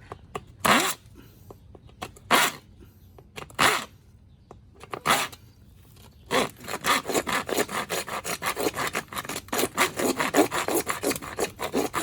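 Hand tool scraping against wood: a few separate strokes, then from about halfway a quick, even back-and-forth run of about four strokes a second.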